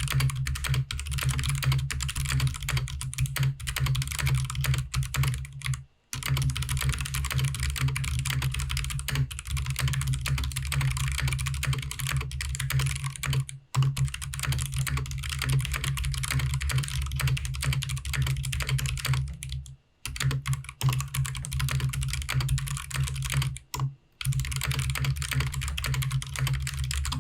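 Typing sound test on a 60% mechanical keyboard in a BBox 60 ABS plastic case, built on a stock GK61 with no lube on the switches or stabilizers: fast, continuous clacking of keystrokes with four brief pauses.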